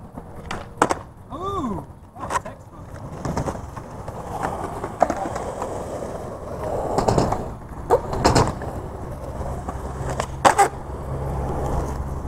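Skateboards on flat concrete: wheels rolling, with a series of sharp pops and clacks as the tail snaps and the board lands during flatground 180 attempts. A steadier low wheel rumble builds over the last few seconds.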